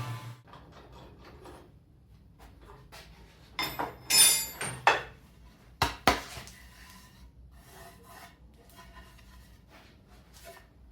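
Wooden cabinet parts being handled: light clicks and taps, with a louder scrape about four seconds in and a sharp wooden knock about six seconds in.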